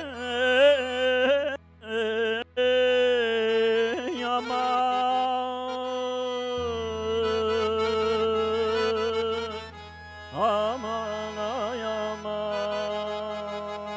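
A man singing an Azerbaijani-style melismatic vocal line through a microphone and stage speakers, with long held notes and wavering, ornamented turns over a steady low hum. The voice breaks off twice briefly about two seconds in and fades near ten seconds before coming back in with fresh ornaments.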